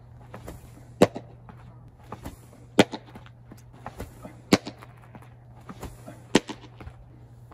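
Sharp, loud pops of a baseball smacking into a leather catcher's mitt, four of them spaced nearly two seconds apart. The last, near the end, is a pitched sinker landing in the glove.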